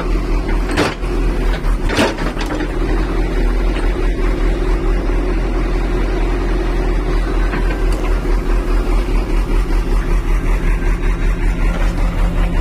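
Excavator's diesel engine running steadily with an even, rapid pulse, with two sharp knocks about one and two seconds in.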